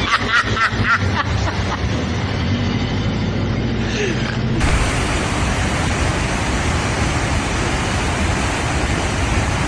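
A motor running low and steady with a few short shouts. About four and a half seconds in it gives way abruptly to a steady, loud rushing noise.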